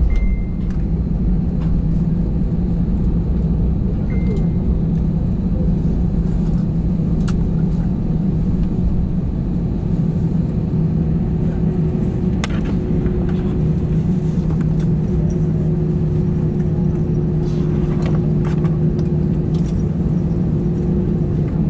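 Cabin noise of an Airbus A320-family jet airliner taxiing, its engines running at idle: a steady low hum with a faint steady tone that comes in a few seconds in and grows stronger about halfway through.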